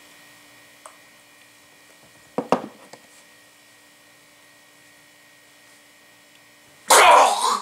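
Faint steady electrical hum in a quiet room. About two and a half seconds in there is a short, sharp mouth sound. Near the end comes a loud, spluttering burst as a mouthful of fake-blood drink is spat out.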